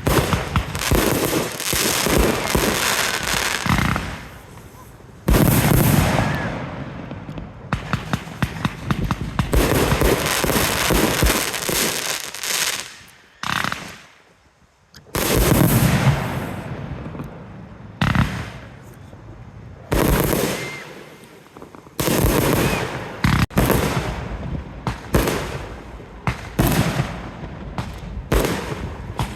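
Fireworks going off: a dense run of crackles and pops, broken by several big bangs that die away slowly.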